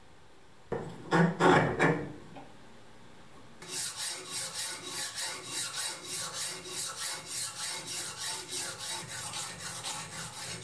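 A hand file rasping back and forth across a steel screwdriver shaft clamped in a bench vise, in even strokes about two a second, starting a little over three seconds in. About a second in, before the filing, comes a short, loud clatter of metal knocks and ringing.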